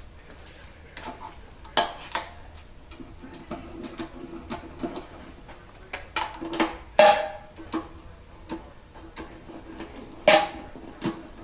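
Metal clinks and clanks of bolts and hand tools against an engine's oil pan and block while the pan bolts are fitted. Light taps and ticks come between a few sharp ringing knocks, the loudest about two, seven and ten seconds in.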